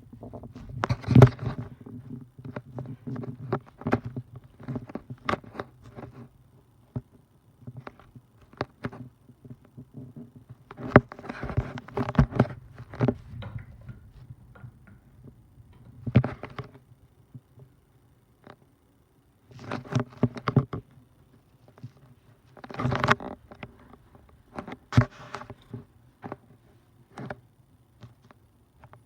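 Hunter Stratford 52-inch ceiling fan's motor running with a steady low hum, under irregular clicks and knocks.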